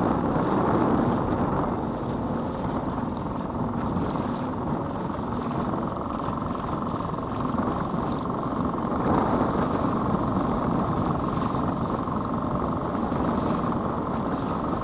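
Small gas outboard motor running steadily, driving a Pelican Bass Raider boat through choppy water, with waves splashing against the hull.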